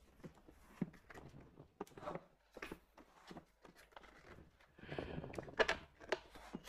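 Scattered light clicks and knocks of plastic as the white plastic panels and corner posts of a stackable locker-box cabinet are handled and fitted together. They come a little more often and louder around five seconds in.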